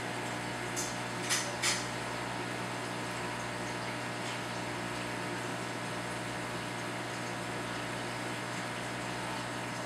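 Aquarium equipment running steadily: an even electrical hum under a water-pump hiss. Three short hissing noises come in quick succession about a second in.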